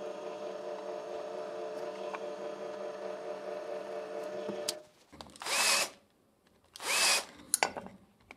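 Bench drill press motor running steadily while drilling a hole in a small metal bracket. It stops a little before halfway through. Then a hand-held drill with a countersink bit gives two short bursts, each spinning up with a rising whine, to chamfer the drilled holes.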